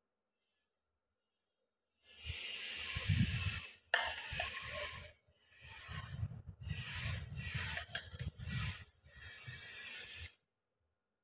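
Rustling and scraping while food is handled: a plastic bag of wrappers crinkling and a metal spoon working filling onto wrappers, in stretches of hissy noise with a few sharp clicks.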